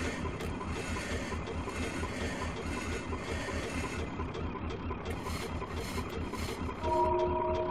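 Industrial soundscape: rhythmic mechanical clatter and rattling over a fast low pulsing. Near the end a held chord of steady tones comes in over it.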